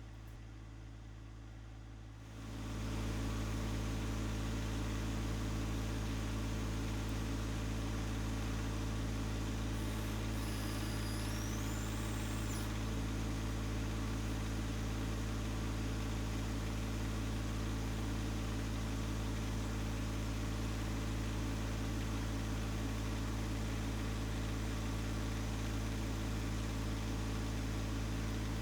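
John Deere 1025R compact tractor's three-cylinder diesel engine running steadily; it is throttled up about two seconds in and then holds a constant speed.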